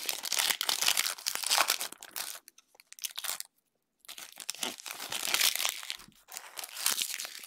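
Foil wrapper of an NFL trading-card pack crinkling as it is handled and torn open by hand, in two bouts with a pause of about a second and a half between them.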